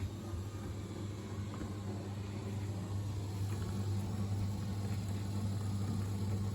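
Bosch washing machines (a Serie 4 and a Logixx 8) spinning together in their final high-speed spin cycle, rated at 1400 rpm: a steady low hum over a whooshing hiss, getting slightly louder about three seconds in.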